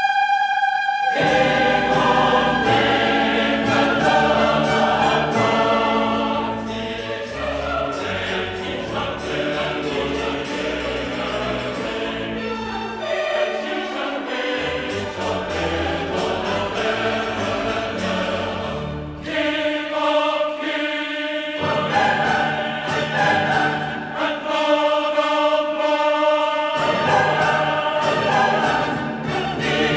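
Background music: a choir singing sustained, slow-moving chords over low accompanying notes.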